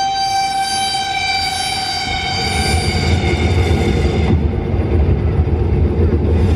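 Reveal soundtrack over a hall's speakers: a held, horn-like chord fades away over the first three seconds while a deep, loud rumble swells in and keeps growing.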